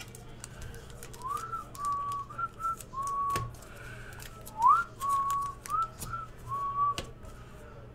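A person whistling a short tune in two phrases, each opening with an upward swoop into held notes, with light clicks of trading cards being handled.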